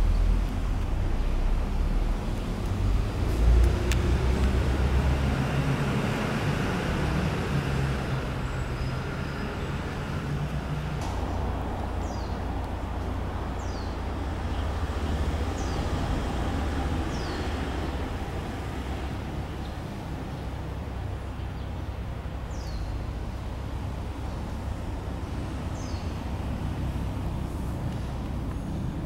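Steady low rumble of distant road traffic, with a brief louder bump about three and a half seconds in. Short high chirps, each falling in pitch, come every second or two in the second half.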